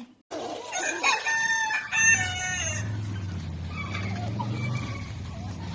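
Several overlapping high-pitched animal calls with gliding pitch for about two and a half seconds, then a steady low hum.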